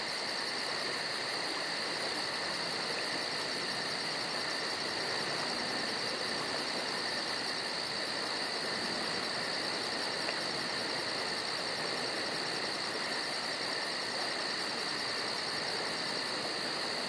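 Insects chirping: a high, rapidly pulsing trill of about four pulses a second over a steady hiss, pausing briefly about fourteen seconds in.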